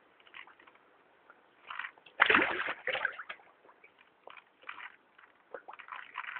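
Koi carp splashing at the pond surface as they feed: irregular splashes and sloshes, the loudest burst a little over two seconds in.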